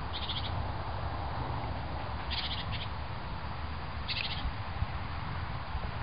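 A small bird giving short, rapid chirping trills, three or four brief calls about two seconds apart, over a steady low rumble.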